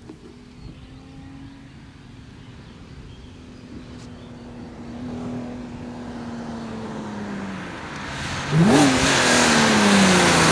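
Alfa Romeo 156 GTA's 3.2-litre V6 approaching under hard acceleration: a faint, distant engine note for the first eight seconds, then about eight and a half seconds in the exhaust turns suddenly loud, its pitch jumping up and then falling away as the car draws close.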